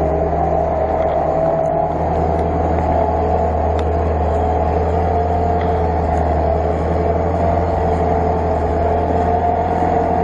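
UAZ-469 off-roader's engine running steadily under load as the vehicle crawls uphill through mud, a low drone with a steady whine above it.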